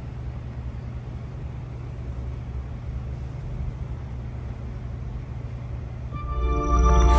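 Hino truck diesel engine running at a steady idle, a low even rumble. About six seconds in, loud music comes in over it.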